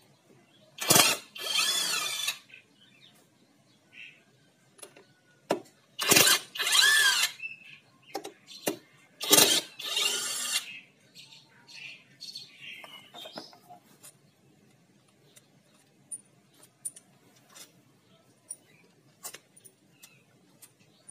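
Cordless impact driver running in three short bursts, about 1, 6 and 9 seconds in, undoing the crankcase bolts of a Yamaha Vega ZR engine. After them come scattered light metal clinks as loosened bolts and tools are handled.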